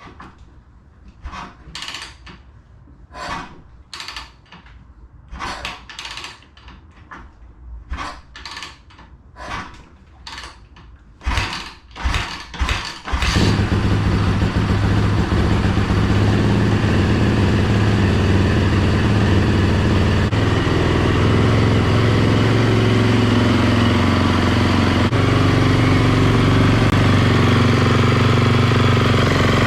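2016 Yamaha YZ450F's 450 cc single-cylinder four-stroke engine, just rebuilt, being started for the first time: a run of short sharp bursts as it is kicked over, then it catches about 13 seconds in and runs at a steady idle.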